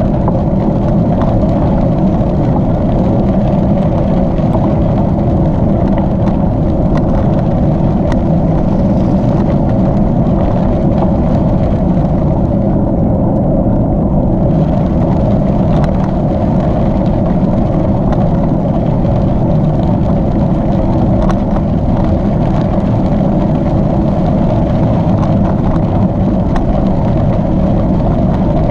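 Steady wind rumble on the microphone of a gravel bike riding along a packed gravel trail, mixed with the tyres' rolling noise and scattered small knocks and clicks from bumps in the surface.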